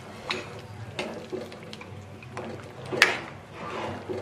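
A utensil stirring soup in a non-stick wok: liquid sloshing over a steady low hum, with scattered clinks and knocks of the utensil against the pan. The sharpest knock comes about three seconds in.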